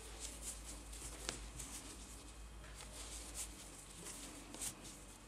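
Faint, repeated soft rustles and scratches of a crochet hook drawing thick fabric yarn through stitches and of hands handling the crocheted fabric, with a sharper click about a second in.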